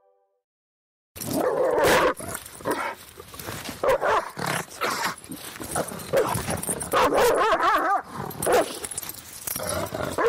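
An angry dog barking and snarling over and over, loud and fast, starting about a second in after a moment of silence.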